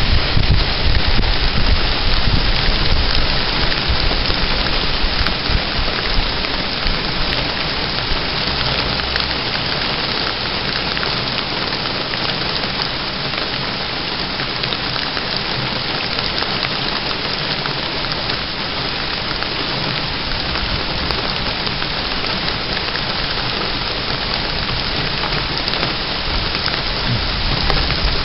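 Rain falling steadily and hard, with a low rumble underneath during the first several seconds.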